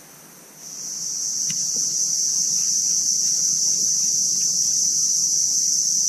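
Steady high-pitched chorus of insects that fades in about half a second in and then goes on without a break.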